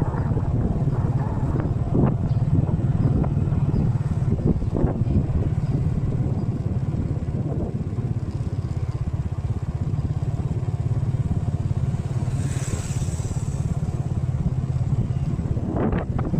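A motorbike engine running steadily at cruising speed: a constant low hum with road and wind rumble. A brief hiss comes about twelve seconds in.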